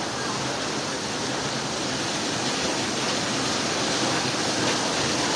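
Fast-flowing floodwater rushing down a street, a steady, unbroken rushing noise.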